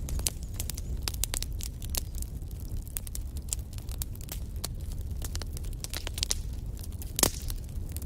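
Wood fire burning in a fireplace: a steady low rumble of flames with frequent sharp crackles and snaps from the logs, and one louder pop a little past seven seconds in.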